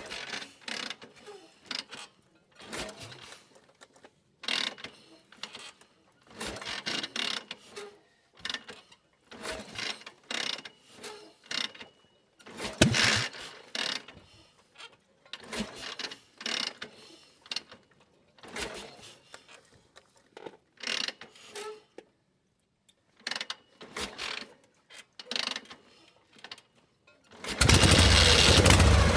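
A series of short, irregular sounds separated by quiet gaps, then, near the end, a motorcycle engine starts running loudly and steadily.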